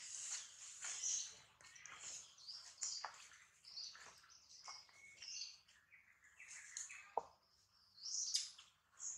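Birds chirping in the trees, a rapid run of short, high calls, with a brief sharp squeak about seven seconds in.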